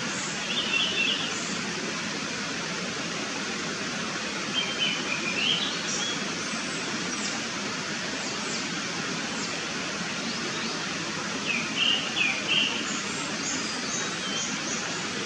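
Japanese thrush (Turdus cardis) singing: three short song phrases of quick whistled notes, near the start, about five seconds in and about twelve seconds in, with thin high notes, over a steady background hiss.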